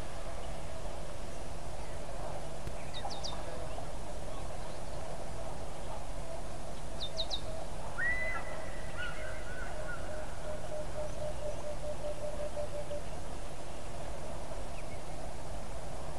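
Wild birds calling over a steady outdoor hiss: quick high chirps about three and seven seconds in, then a longer call around eight seconds followed by a run of quick low notes.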